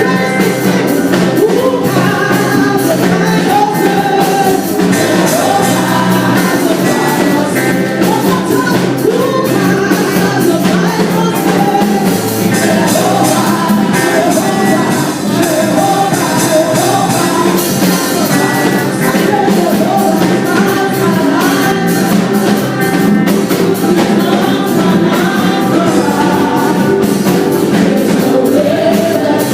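Gospel praise music: a band playing with singers, their voices gliding over steady sustained chords, and a regular drum and cymbal beat.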